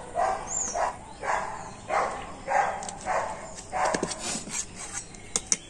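A dog barking over and over at an even pace, about three barks every two seconds. Near the end, a couple of sharp clicks as a knife cutting a steamed pitha meets the steel plate.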